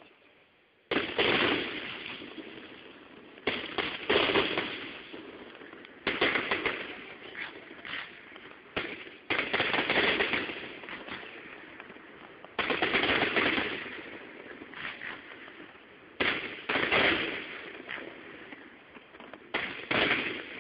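Aerial fireworks shells bursting in quick succession: about ten sharp bangs, each trailing off in a decaying rumble, some coming in close pairs, the first about a second in. Heard through a phone microphone that crackles and distorts on the loud bangs.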